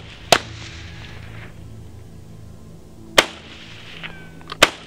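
Three rifle shots: one just after the start, then two more about three and four and a half seconds in, each with a short echo trailing off.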